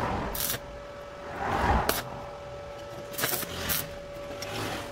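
Stick (electrode) arc welder laying tack welds on steel bar: several short bursts of arc crackle and hiss, each a quick tack that is struck and broken off.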